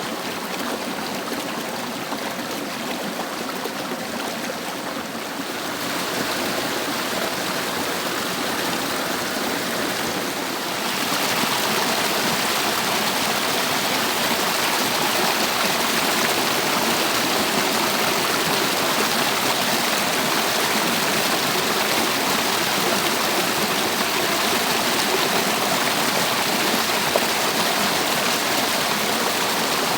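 Rushing water of a stream cascade, a steady noisy rush that steps up louder and brighter twice, about six and eleven seconds in.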